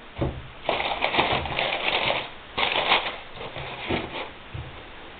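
Tissue paper crinkling and a cardboard shoebox being closed and slid on a wooden tabletop, heard as several short bursts of rustling and scraping.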